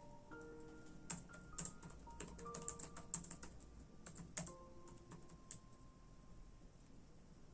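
Computer keyboard typing: a quick run of keystrokes starting about a second in and stopping about four and a half seconds in, with one more keystroke a second later. Soft music with held notes plays underneath.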